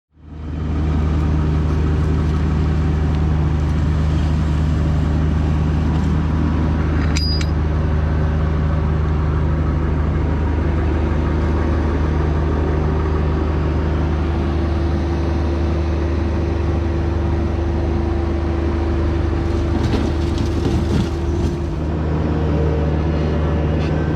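Diesel engine running steadily under load with a constant low drone; a faint higher tone joins about a quarter of the way in and drops out near the end.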